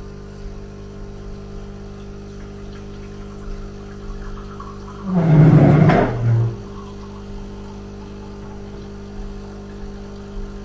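Espresso machine running with a steady low hum, with a louder, rougher surge of just over a second about halfway through.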